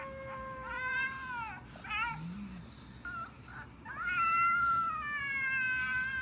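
Pug whining in a series of high-pitched, gliding whines, one short and wavering, the longest starting about four seconds in; the owner takes it as the dog wanting to come up on the bed.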